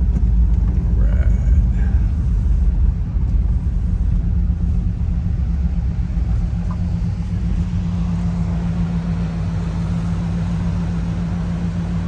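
Car driving: steady low road and engine rumble. A steady low engine hum comes in about halfway through.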